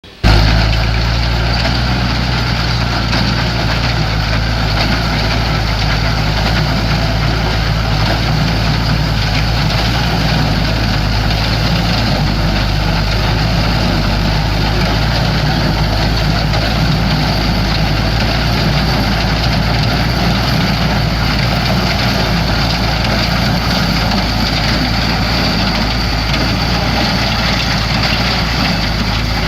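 Massey-Harris Super 101 tractor engine and New Idea T-6 square baler running steadily.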